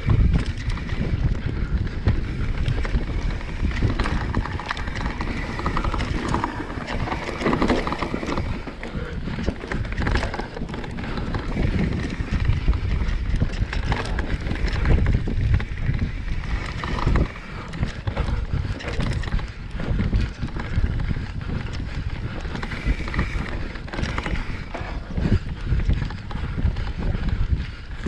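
Enduro mountain bike descending a rocky trail at speed: tyres clattering and knocking over rocks and loose gravel, with the bike rattling, and wind noise on the microphone.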